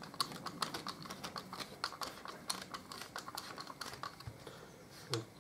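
Quick run of light metallic clicks from a small socket ratchet turning the pad retaining pin into a Harley-Davidson rear brake caliper, thinning out near the end.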